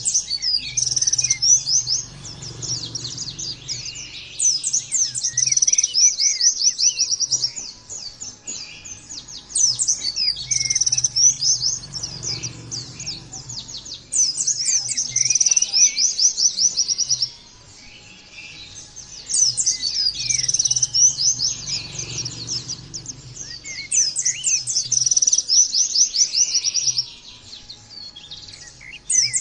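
White-eye (pleci) singing in repeated bouts of fast, high chattering trills, each a few seconds long with short breaks between.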